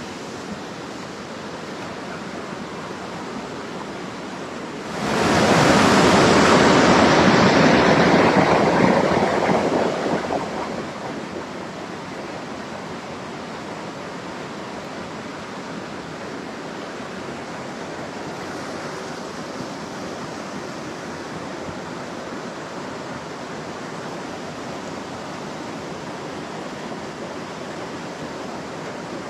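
Water of a small hill-stream waterfall pouring steadily. About five seconds in a much louder rushing surge starts suddenly and fades back down over about six seconds.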